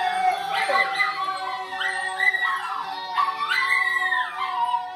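Children's voices singing and wailing in long held notes that slide up and down in pitch, several voices overlapping, with no clear words.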